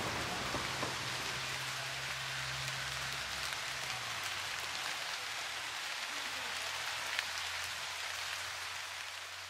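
Steady rain falling, an even hiss of drops with a low steady hum underneath; the sound fades out near the end.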